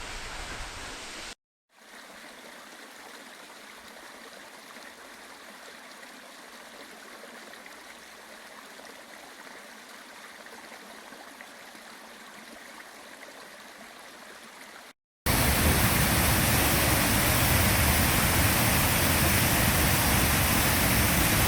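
Rushing water of a waterfall, a steady hiss heard in three separate takes with short silent gaps between them: faint through most of the stretch, then much louder for the last six seconds.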